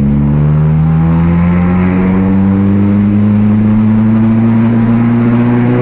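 Chevrolet Kadett's engine with a straight-pipe exhaust (just the pipe, no mufflers) pulling under heavy throttle, its pitch rising slowly and steadily, heard from inside the cabin.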